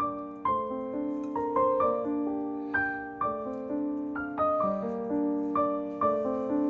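Background piano music, a gentle melody of struck notes that each ring and fade.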